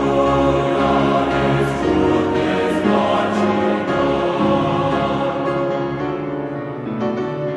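Background music: a choir singing held notes.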